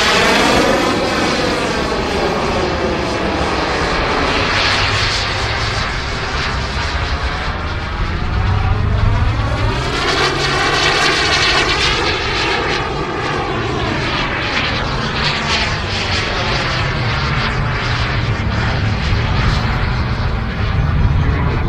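Small gas-turbine engine of a 1/5-scale Skymaster F-16 radio-controlled model jet running loud as the jet flies its display, its tone sweeping as it passes, near the start and again about ten to fourteen seconds in.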